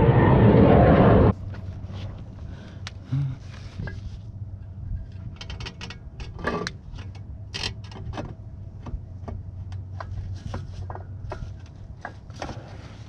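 Light metallic clicks and short scrapes as gloved hands work sections of a new Mercedes W126 exhaust pipe together at a flange joint, over a low steady hum. A loud rush of noise fills the first second and cuts off suddenly.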